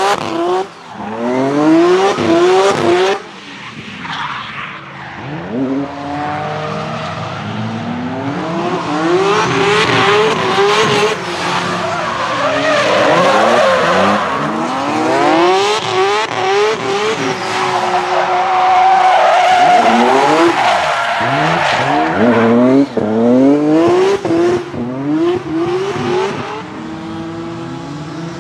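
Supercharged S54 straight-six of a BMW M3 E46 revving hard in repeated rising sweeps while drifting, the tyres skidding and squealing under it. The sound dips a few seconds in, then builds again.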